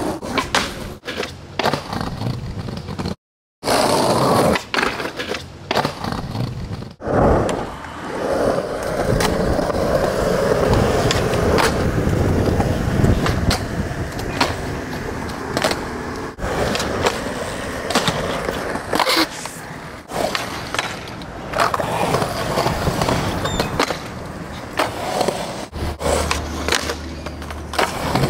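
Skateboard wheels rolling on concrete, broken by repeated sharp clacks of tail pops and landings, with a long scraping stretch of the board grinding or sliding along a ledge. The sound cuts out for a moment about three seconds in.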